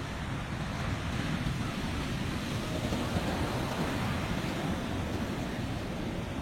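Steady rushing noise of wind and heavy surf, with wind buffeting the microphone.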